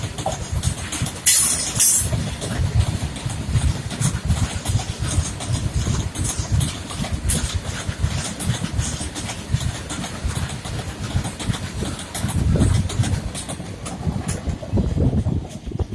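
Loaded goods wagons of an electric freight train rolling past close by: a steady rumble of steel wheels with a quick run of clatters over the rail joints, and a brief high-pitched metallic burst about a second and a half in.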